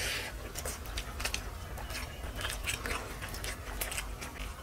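Close-up chewing and wet mouth smacking while eating mutton and rice, a quick run of irregular small clicks.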